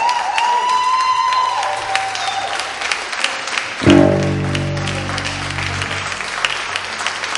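Audience applauding steadily while a live band plays. An electric guitar holds a bending note in the first two seconds, then a loud low chord is struck about four seconds in and rings out for about two seconds.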